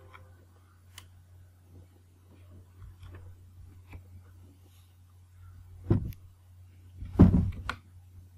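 Faint clicks and taps of a computer mouse and keyboard during spreadsheet editing, with two heavier thumps about six and seven seconds in, over a steady low electrical hum.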